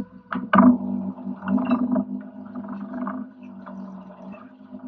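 A steady, low mechanical drone from the boat's machinery, with a few sharp knocks and clatter as a lobster pot is handled at the boat's rail; the loudest knock comes about half a second in.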